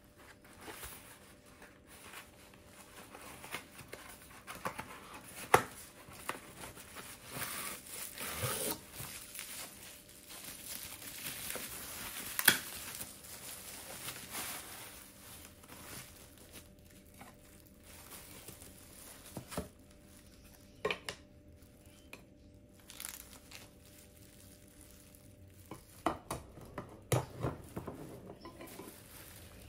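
Bubble wrap and cardboard packaging rustling and crinkling as items are unwrapped, with a couple of sharp clicks. Near the end comes a run of light knocks while the wooden parts of a mirror stand are handled.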